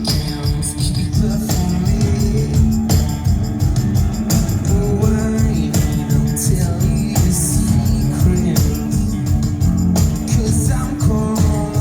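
Rock band playing live and loud, with heavy accented hits recurring about every second and a half.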